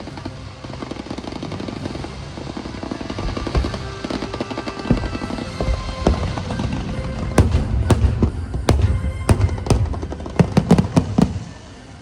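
Fireworks display: a dense, continuous crackle at first, then from about halfway a rapid run of sharp bangs as shells burst. Music plays underneath.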